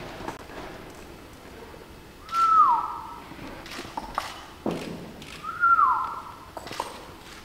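Two whistled notes about three seconds apart, each held high and then sliding down, with a few soft clicks and knocks in between.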